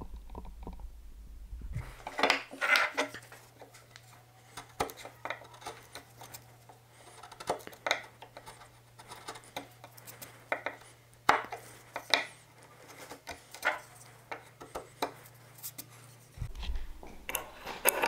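Chisel working a shallow hinge mortise in wood: irregular sharp clicks, knocks and short scrapes of the steel blade on the wood.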